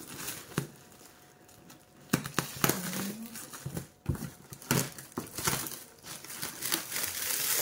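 Plastic wrapping on a parcel crinkling and rustling as it is handled and cut open with scissors, with irregular sharp crackles. The rustling grows louder near the end.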